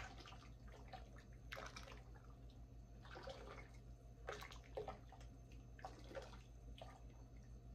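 Faint sloshing of a spatula stirring thin, stock-filled gumbo in a pot, in irregular swishes every second or so, over a low steady hum.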